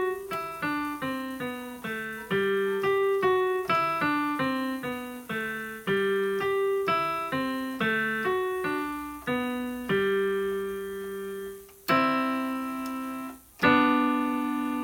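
Electronic keyboard with a piano sound playing a simple beginner's piece: a steady run of single melody notes over a lower line, then a longer held note, a chord, and a final chord held and fading near the end.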